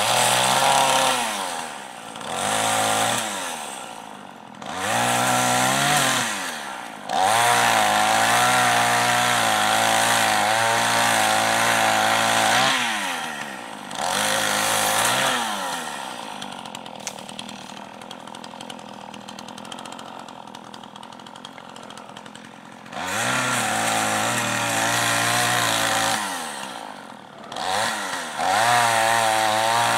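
Chainsaw cutting into small evergreen trees, its motor revving up and dropping back again and again. About halfway through it runs quieter at low speed for several seconds, then revs back up to cut.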